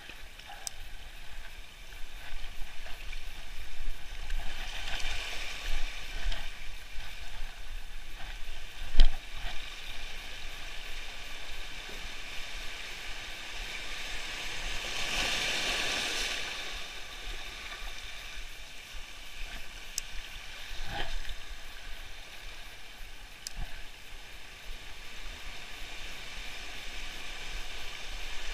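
Sea waves washing in over shallow water, swelling twice, the second time more strongly, with a sharp knock about nine seconds in.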